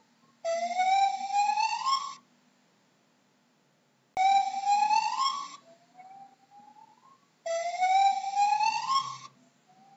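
Gibbon calling: three long rising whoops a few seconds apart, each followed by a fainter, lower rising note.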